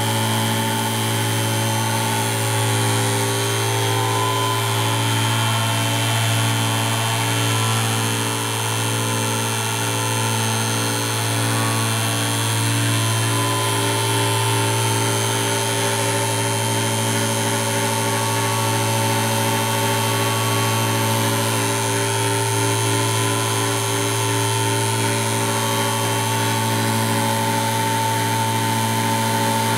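Home-built EMDR magnet motor generator running steadily under load: a constant electric hum with a rapid buzz, the buzz coming from the piezo discs wired in series with the generator coils. Its flywheel is slightly out of balance and its bearing is slowly wearing out.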